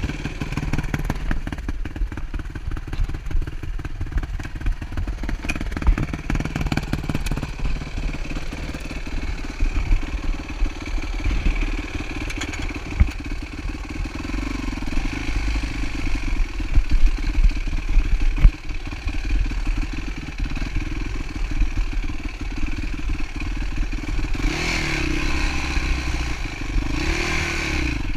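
Dirt bike engine running at low revs, with clattering and knocks, then revved up twice near the end.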